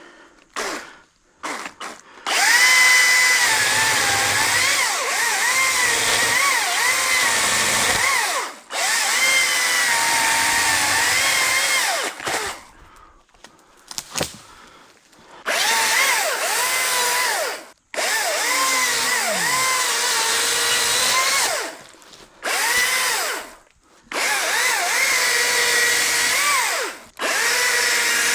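ECHO DCS-2500T cordless top-handle chainsaw making a series of cuts through wood. Its high electric-motor whine dips and wavers as the chain loads in the cut, and the saw stops briefly between cuts.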